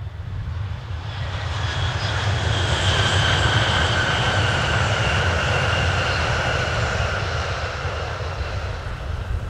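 Shinkansen Type 923 'Doctor Yellow' inspection train passing at speed: a rushing noise swells to a peak about three seconds in, then slowly fades, with a high whine that slides slightly lower as it goes by, over a steady low rumble.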